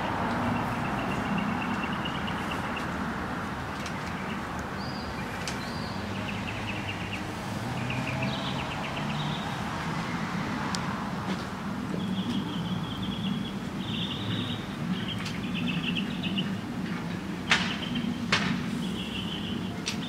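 Small birds singing short, trilled phrases, one every second or so, over a steady low rumble, with two sharp clicks near the end.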